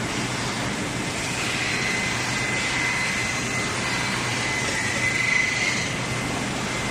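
CNC brake lining inner arc grinding machine running, a steady grinding noise over a motor hum, with a thin high whine that builds and is loudest about five seconds in.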